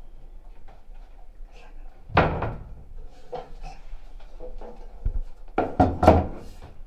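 Cupboard doors banging: one loud bang about two seconds in, a dull thump near five seconds, then three quick bangs close together.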